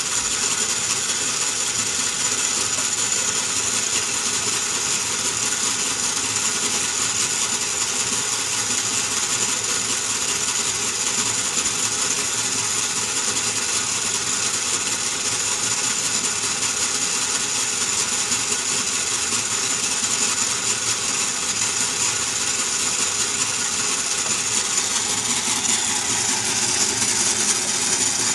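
Merkur metal construction-kit model of a single diesel-engine cylinder running, its crank, pushrods, rocker arms and bolted steel strips giving a steady, even metallic clatter.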